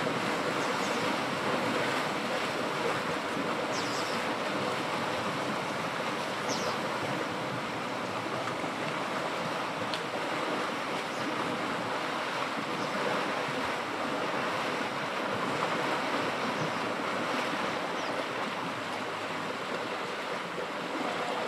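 Steady splashing and churning of river water as a herd of African elephants wades through it.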